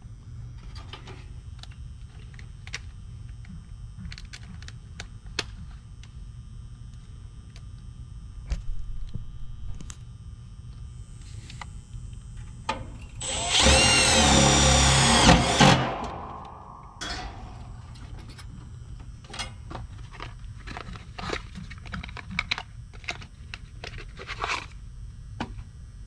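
Cordless drill running for about two and a half seconds about halfway through, driving a screw into an air-conditioner condenser's sheet-metal panel to fasten a capacitor bracket, its motor pitch wavering under load. Light clicks and taps of hands working the panel and wiring come before and after it.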